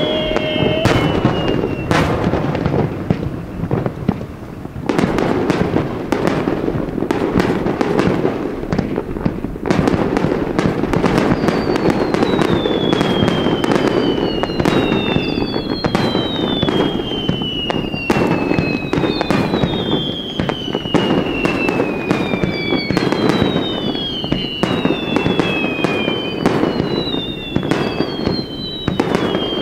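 Fireworks display going off continuously: a dense run of bangs and booms over a steady crackling rumble. From about a third of the way in, many overlapping whistles slide down in pitch, one after another.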